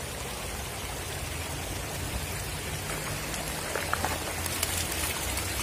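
Shallow river water running over stones, a steady rushing hiss, with a few faint ticks about four seconds in.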